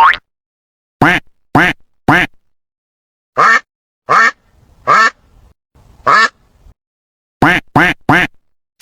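A duck quacking: about ten short, loud quacks, mostly in quick runs of three, with brief silent gaps between the runs.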